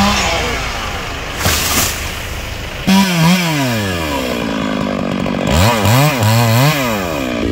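Chainsaw engine working a cut at the base of a large tree trunk. About three seconds in the engine speed falls away, and near the end it is revved up and down in a few quick blips.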